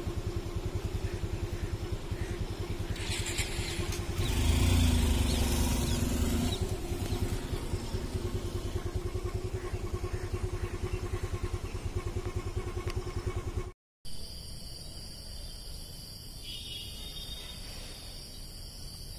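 A small engine running steadily with a fast, even pulse, louder for a couple of seconds about four seconds in. After a brief dropout about two-thirds of the way through, insects, likely crickets, chirp steadily at a high pitch.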